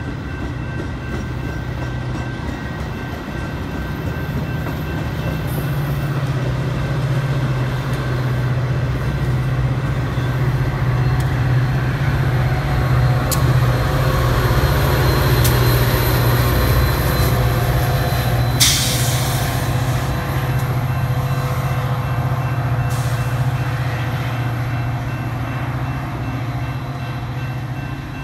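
Metra commuter train of bi-level gallery cars rolling past, with steady wheel-on-rail noise under the low, even drone of the diesel locomotive. The drone grows louder midway through. A short, sharp burst of high noise comes about two-thirds of the way through.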